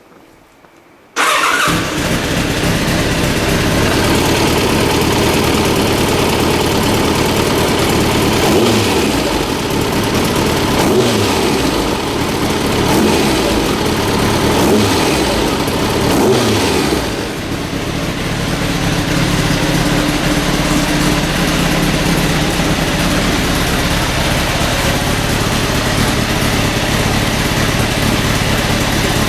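Kawasaki ZZR1100 D's inline-four engine starting about a second in and catching at once, then running with about five quick throttle blips in the middle before settling to a steady idle. The carburettors have been freshly cleaned and the battery is new, and the engine runs strongly.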